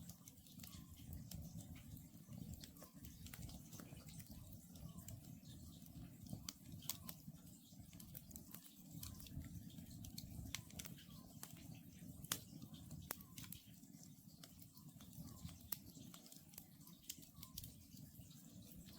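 Wood campfire crackling with irregular sharp pops over a low steady rumble, while an Oriental scops owl calls faintly and repeatedly, about once a second.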